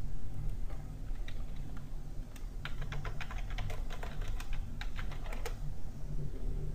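Computer keyboard being typed on: a quick run of key clicks, starting about a second in and thickest in the middle, over a low steady hum.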